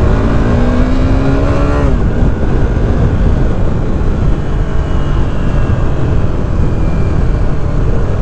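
KTM RC390's single-cylinder engine pulling under throttle, its pitch rising for about two seconds and then dropping away as the revs fall. After that, heavy wind rush on the microphone dominates as the bike rides on.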